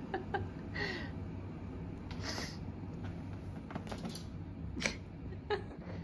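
A few faint, scattered knocks and two short rustles over a low steady hum: a small kitten jumping down from a windowsill and scrambling about on the floor and furniture.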